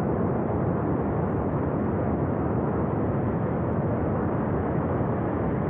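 Flash flood from a glacier burst: water and debris rushing down a mountain river valley, a steady, unbroken rush with no let-up.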